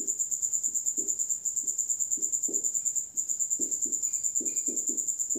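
A cricket trilling steadily in a fast, continuous pulse. Under it come soft irregular squeaks and taps of a marker writing on a whiteboard.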